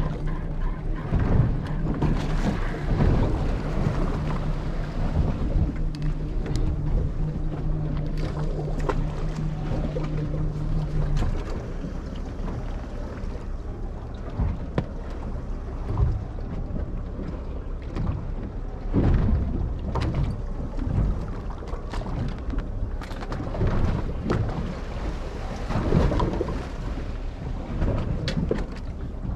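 Fishing boat at sea: a steady low motor hum that stops about eleven seconds in, over wind rumbling on the microphone, with scattered knocks and thumps throughout.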